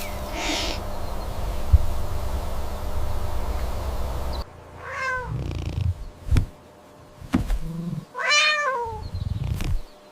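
A cat meowing twice: a short falling meow about five seconds in, then a longer meow that rises and falls near the end. Before the meows there is a steady low rumble, and a few low thumps fall between them.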